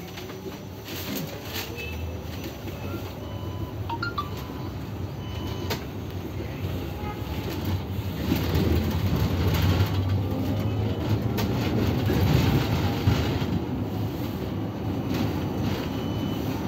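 Electric city bus heard from inside: a low rumble and road noise that grow steadily louder as the bus pulls away and gathers speed.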